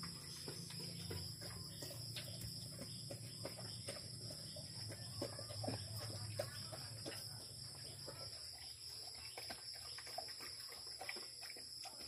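Doberman eating dry kibble from a plastic bowl: faint, irregular crunching and chewing clicks. A steady high chirring of crickets runs behind it.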